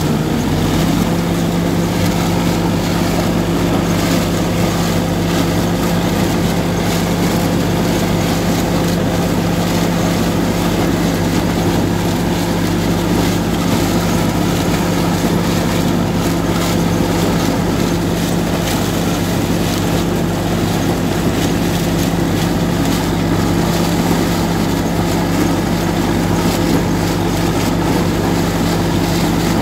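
IMT 577 DV tractor's diesel engine running steadily under load as it drives and pulls a SIP Tornado 80 corn picker through standing maize, with the picker's mechanism clattering along beneath. The engine note steps up slightly about a second in, then holds steady.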